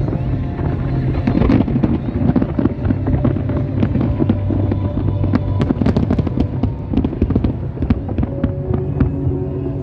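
A large fireworks display going off: a dense, continuous barrage of overlapping bangs and crackles, many reports a second.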